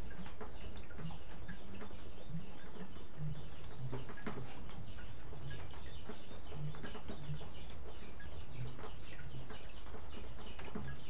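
Knife slicing meat on a wooden cutting board, with a few sharp taps of the blade on the board, over a steady background hiss. Chickens and other birds call on and off throughout.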